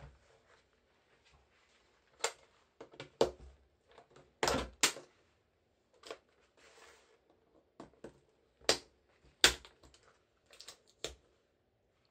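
Irregular sharp plastic clicks and knocks, about a dozen, loudest in a close pair about halfway through and again later, with a brief scrape in the middle: a computer keyboard's plastic case being handled during disassembly.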